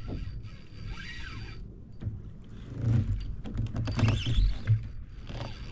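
Spinning fishing reel being cranked while fighting a hooked fish on a bent rod: mechanical reel and gear noise with handling bumps, over a steady low rumble.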